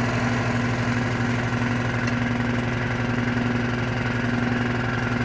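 Electric power tool running steadily with a constant hum and fine rapid vibration, cutting through a piece of recycled HDPE plastic.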